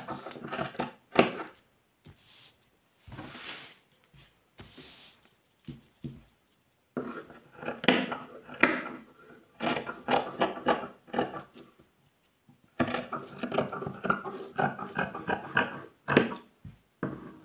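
Fabric and a paper pattern being handled and shifted on a wooden table, rustling and scraping in irregular bursts. Near the end, sewing scissors cut through the fabric in a few sharp snips.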